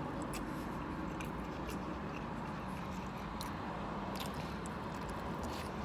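A man biting into and chewing a piece of rotisserie chicken: soft, wet mouth sounds and a few faint clicks over a steady low hum.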